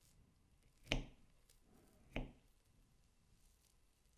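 Two short, light knocks of tableware on a wooden tabletop, a little over a second apart, the first the louder.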